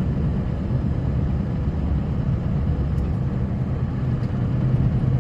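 Snowplow vehicle's engine running steadily under load while plowing, a low even drone with road and snow noise over it.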